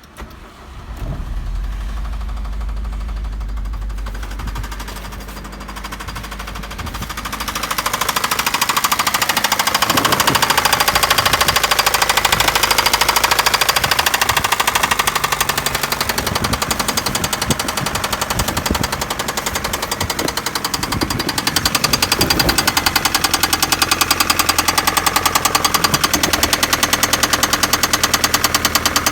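Daewoo Nexia engine running with a rapid, regular knock in time with the engine. It grows louder about seven seconds in and then holds steady.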